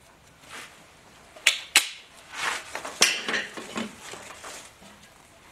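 Small steel parts clinking and being handled: three sharp metallic clicks, two close together and a third about a second later, among rummaging handling noise, as a steel core plug (freeze plug) is picked up.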